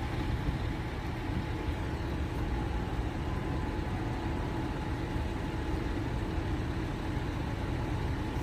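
Steady low rumble of an idling motor vehicle engine, unbroken throughout.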